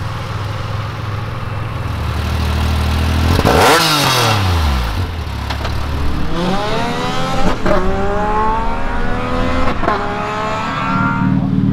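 An ice-racing car speeds past about four seconds in, its engine pitch dropping steeply. Then a car engine revs up through the gears, with shifts about seven and a half and ten seconds in, over a steady idling engine.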